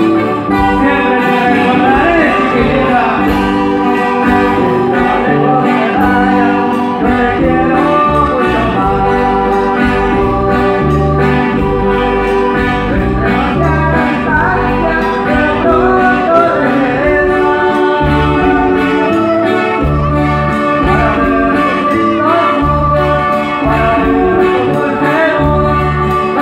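Live band music: singing over acoustic guitar, low bass notes and drums.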